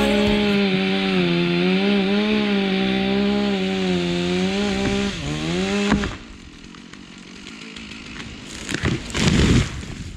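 Chainsaw running at high revs, cutting through the top of a tall pine tree. The pitch drops and the saw stops about six seconds in. A few seconds later the cut-off treetop crashes down through branches onto the snow.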